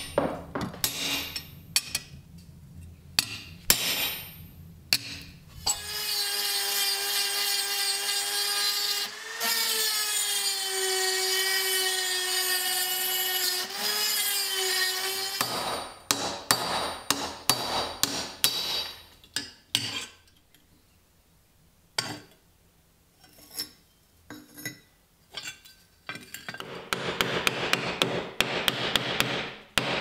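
Hand metalwork on a rusty 19th-century iron padlock: sharp metal taps at first, then a steady high squeal lasting about nine seconds. A run of hammer blows on a punch set against an anvil follows, and near the end comes scraping with fast ticks.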